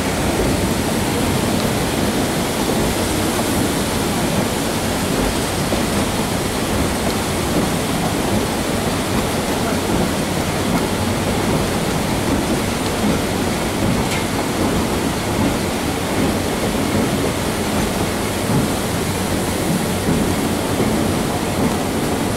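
Steady rumble and rush of a moving train's wheels on the rails, heard from an open passenger car behind a Shay geared steam locomotive.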